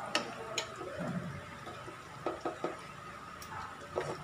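A plastic spatula stirring fish and tofu in sauce in an aluminum wok, with a few light clicks and taps of the spatula against the pan, about five in all.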